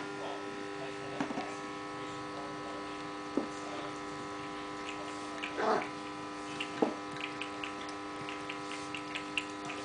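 A cat lapping milk from a stainless steel bowl, heard as small wet clicks that become quick and regular, about three or four a second, in the second half, with a few louder knocks against the bowl. A steady electrical hum runs underneath throughout.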